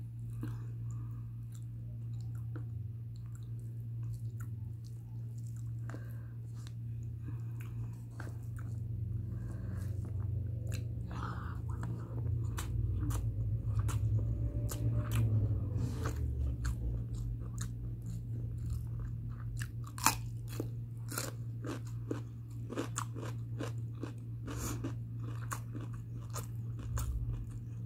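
A person chewing mutton biryani close to the microphone, with many wet mouth clicks and smacks, over a steady low hum.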